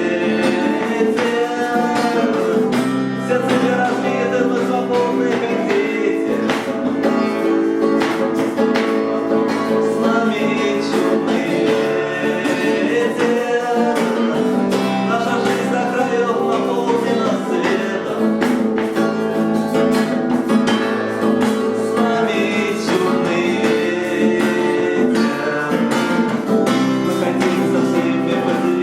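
Acoustic guitar strumming, accompanying a voice singing a song.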